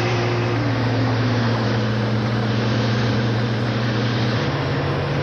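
Heavy tractor-trailer trucks running hard down a grade: a steady low engine drone over road noise, with one engine note falling in pitch over the first couple of seconds.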